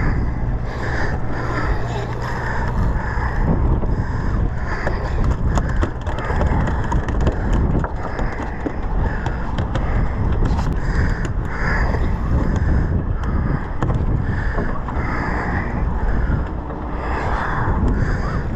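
Steady rumble of a boat's engine and water noise on the open deck of a sportfishing boat, with wind on the microphone.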